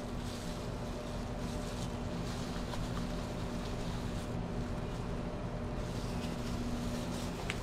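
A steady low mechanical hum over outdoor background noise, with the hum fading out near the end.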